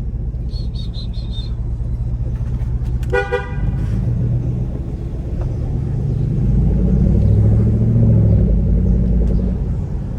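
Chevrolet Camaro SS's 6.2-litre V8 running at low speed, getting louder about six seconds in as it pulls ahead gently, then easing off near the end. A short car-horn toot sounds about three seconds in.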